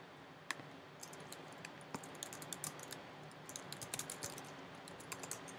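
Computer keyboard typing: a faint run of quick keystrokes in short bursts, after a single click about half a second in.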